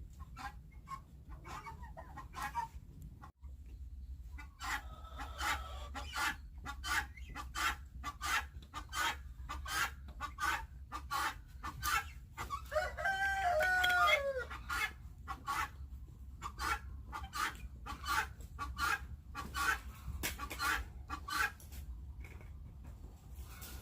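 Flock of chickens clucking continuously, with a rooster crowing once about halfway through.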